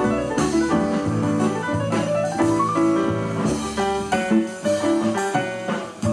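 Instrumental background music with piano and drums, moving notes over a steady beat.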